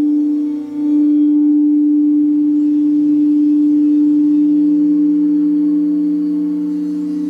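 Crystal singing bowls played around the rim with a mallet, ringing with a steady pure tone that dips briefly and swells back under about a second in. A second, lower tone from the other bowl grows in from about four seconds in.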